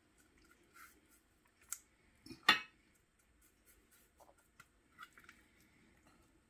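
Hands rubbing dry seasoning into a whole raw red snapper: soft scratchy rubbing of fingers on the fish skin and in a glass bowl of seasoning, with small scattered clicks and one louder brief knock about two and a half seconds in.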